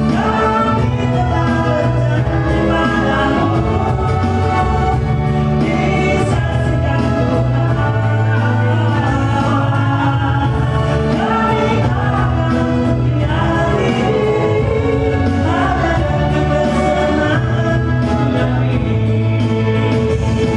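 Nasyid song with a group of singers over instrumental backing and a steady bass line.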